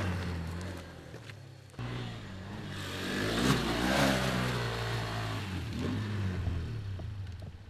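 Small dirt-bike engine revving hard, its pitch rising and falling as the bike climbs a steep grassy slope, loudest about three and a half seconds in, then running on more evenly and fading away near the end.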